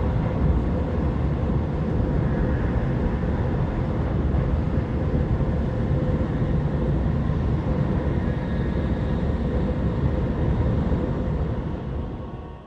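Loud, steady low rumbling noise that fades out in the last second.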